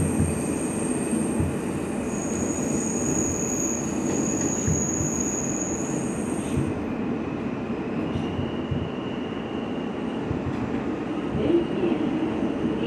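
NYC Subway R160 car running through a tunnel: a steady rumble of wheels on rail, with a thin high-pitched wheel squeal over it through the first half that stops about two thirds of the way in.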